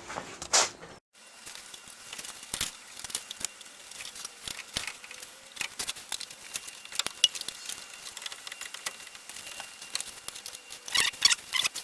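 Scattered light clicks, knocks and small rattles of hands and metal tools working in the car's engine bay while a new fan belt is fitted, with a busier burst of rattling near the end.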